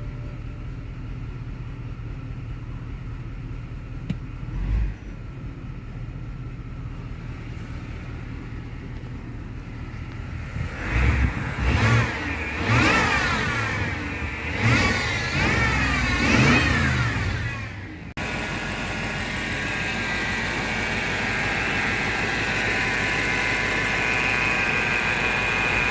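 BMW X5 4.8i's N62 V8 engine idling, then revved in several quick blips about halfway through, a moaning whine sweeping up and down with the revs. After a sudden cut it runs steadily with a higher whine. This moaning, meowing noise from the engine is the fault being shown.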